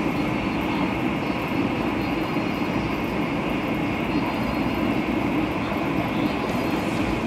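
Steady rumble and rushing hiss inside the passenger cabin of a THSR 700T high-speed train running at speed.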